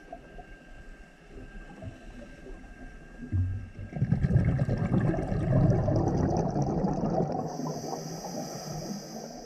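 Scuba diver breathing through a regulator underwater: a quieter stretch, then a loud rush of exhaled bubbles from about three and a half seconds in, dying away near the end.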